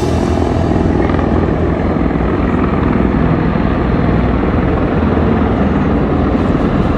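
Aircraft flying over: a loud, steady engine rumble, with a high hiss that fades over the first second or so.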